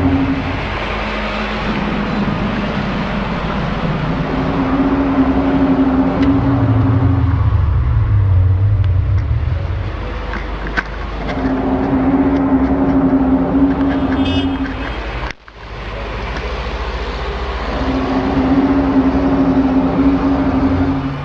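Loud, droning horn-like tones over a constant low rumble: long blasts of about three seconds, a higher pitch alternating with a deeper one, with a sudden break about fifteen seconds in. It is an unexplained sound of the kind reported as 'strange sounds in the sky'; those recording it do not know what it is.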